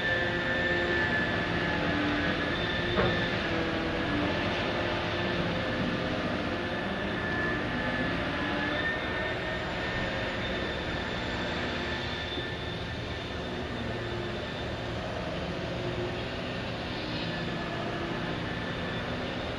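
Liebherr P995 hydraulic backhoe on a dredging vessel running steadily: an engine drone with a high, steady whine over it, and a single sharp knock about three seconds in.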